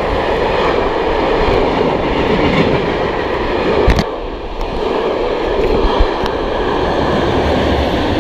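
A train passing through a station at speed right beside the platform edge: a loud, steady rush and rumble of the train going by, with a few sharp knocks from the wheels, the loudest about four seconds in.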